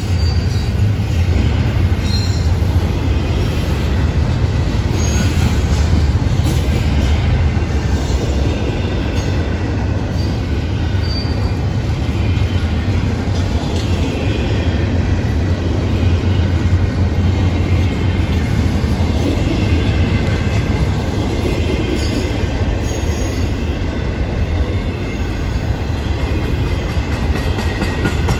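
Double-stack intermodal freight cars rolling past at close range: a steady rumble of steel wheels on rail. Now and then a brief high wheel squeal rises above it.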